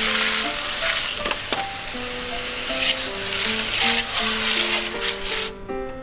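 Water spraying from a hose spray nozzle onto a plastic air-conditioner panel, a steady hiss of spray and splashing as the cleaning chemical is rinsed off; the spray stops briefly near the end. Background music with a simple melody plays underneath.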